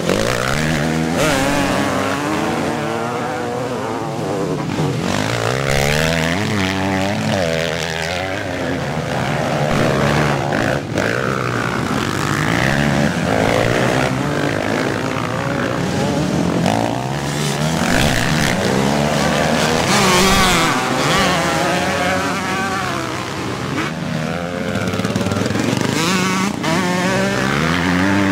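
Several motocross bikes racing past, their engines revving hard. Overlapping engine notes at different pitches keep climbing and dropping.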